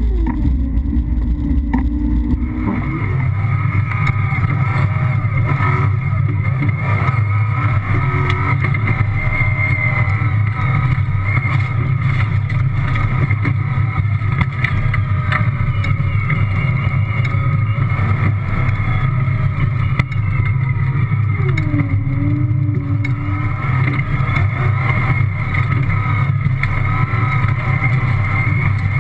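Toyota rally car heard from inside the cockpit, driven at speed on a gravel track: a loud, steady engine and drivetrain drone. The sound changes abruptly about three seconds in.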